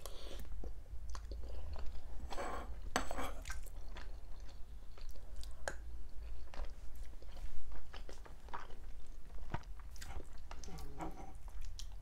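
Close-miked chewing of rice-stuffed dolma (vine leaves, onion and tomato), with many irregular mouth clicks and a louder stretch of chewing about two to three seconds in.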